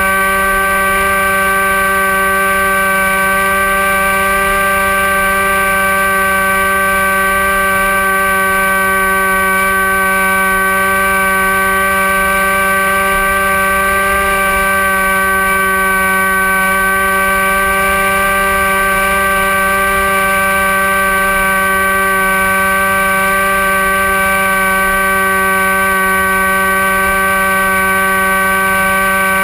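Electric motor and propeller of a Dynam Hawk Sky RC plane whining steadily at constant throttle in flight, picked up by its onboard camera, with wind rush on the microphone underneath.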